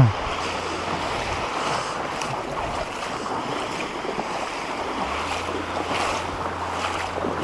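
Shallow seawater sloshing and splashing around legs wading across a reef flat, over a steady wash of small waves and wind on the microphone.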